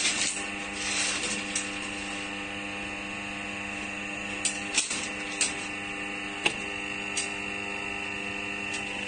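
Hydraulic rebar cutting and bending machine's electric motor and pump running with a steady hum, with a few sharp metallic clicks over it.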